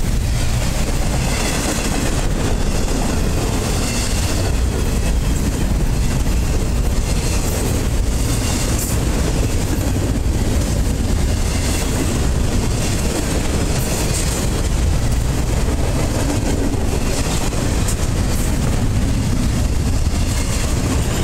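Double-stack intermodal container well cars of a freight train rolling past close by: a steady rumble and clatter of steel wheels on the rails.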